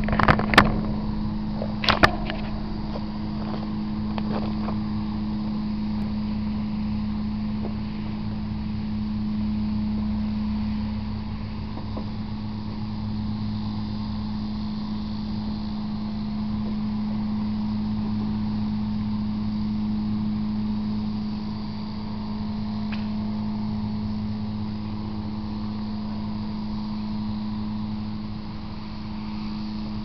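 A steady mechanical hum, like a motor running, holding one constant low tone with a rumble beneath it. A few sharp clicks come in the first two seconds.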